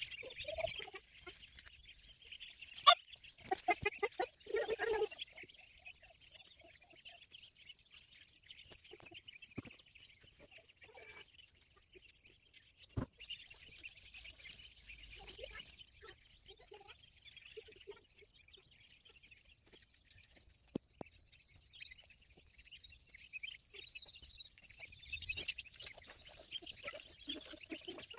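A brood of ducklings peeping continuously and high-pitched while they forage, with a few sharp clicks, the loudest about three seconds in.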